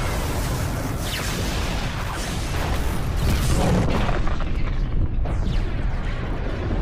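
Sci-fi sound effect of a starship packed with rhydonium fuel exploding: a sustained, rumbling blast with a heavy low end that swells louder about four seconds in.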